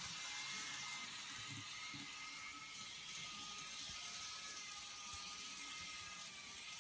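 TOMIX N-gauge KiHa 40 2000 model railcar running on its track: a faint, steady electric-motor whine with a few light clicks from the wheels on the rails.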